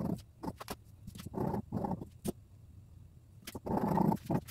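Fabric scissors cutting through tulle net on a table: sharp clicks, and two longer rough cutting strokes, one about a second and a half in and one near the end.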